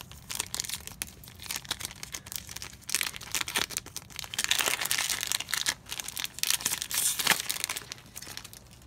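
Trading-card booster-pack wrappers crinkling and tearing as packs are ripped open and handled, a dense crackle that is loudest in the middle and dies down near the end.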